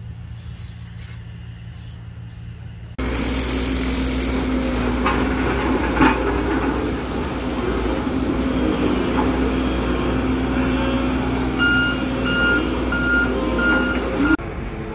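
Sakai road roller's diesel engine running with a steady hum. Near the end its reversing alarm beeps about twice a second. The first three seconds are quieter, with a few light taps.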